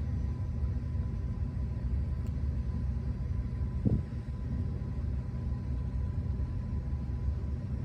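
Steady low background rumble with a faint thin steady tone above it, and one brief soft sound about four seconds in.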